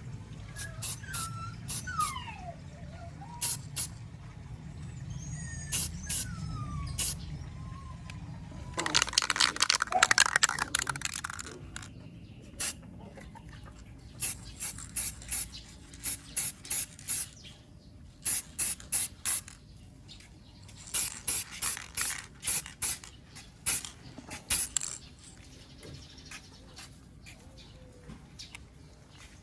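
Aerosol spray can of clear gloss top coat hissing, first in one longer blast of about two seconds, then in many short bursts in quick runs. Birds chirp in the background during the first few seconds.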